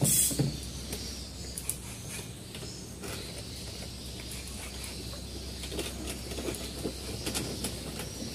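A bamboo fishing rod swishes up sharply as the hook is set, with a short rush of noise and a couple of knocks in the first two seconds. Then come scattered light clicks and small splashes as the rod stays bent with a fish on the line, over a steady low hum.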